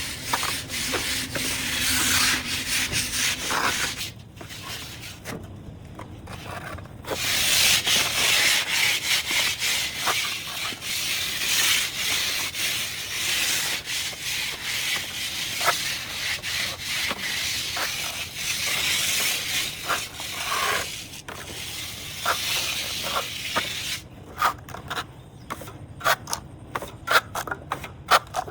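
Rough scraping and rubbing of a tool on concrete, stopping for a few seconds about four seconds in, then going on; near the end it gives way to scattered clicks and knocks.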